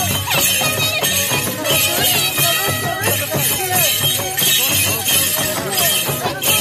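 Andean folk music led by a harp, with a steady high jingling on each beat.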